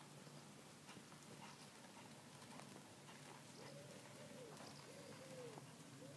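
Near-quiet outdoor air with a pigeon cooing, a repeated low phrase that rises and falls, starting about three and a half seconds in. Faint soft ticks of a trotting horse's hoofbeats on the arena surface run underneath.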